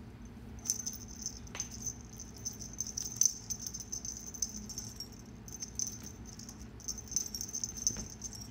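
Small jingle bells jingling in quick, irregular shakes as a kitten plays with a feather wand toy, with a couple of brief pauses.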